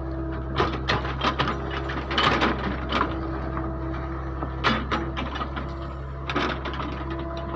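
Backhoe engine running steadily, with a series of irregular clunks and clatters as the bucket loads material into a mini dump truck.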